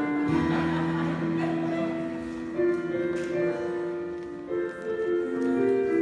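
Live rock band playing a slow passage: long held guitar and keyboard notes that change pitch every second or so, with no drumbeat.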